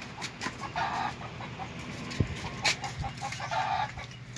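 Chickens clucking: two short calls about a second in and near the end, with a couple of sharp knocks about two and a half seconds in.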